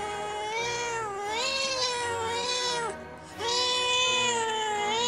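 Tabby cat yowling in two long, wavering, drawn-out calls, a short break about three seconds in between them: the warning yowl of an angry cat.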